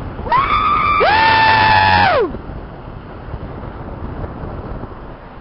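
A person screaming in excitement: long, high-pitched held cries lasting about two seconds, the pitch falling away at the end. Then a steady rush of wind and road noise from the moving car.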